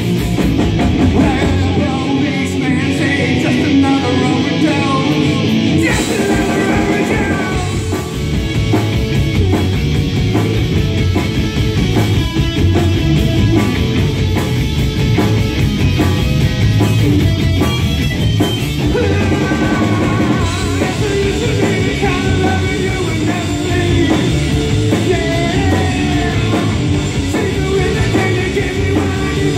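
Rock band playing live: guitar and drum kit with a singer, loud and continuous.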